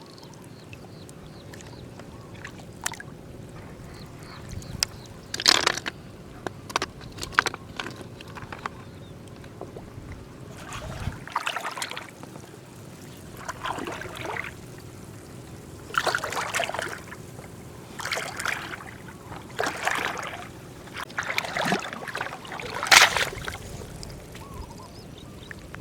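Shallow water sloshing and splashing in irregular bursts every second or two, over a steady background wash; the loudest splash comes near the end.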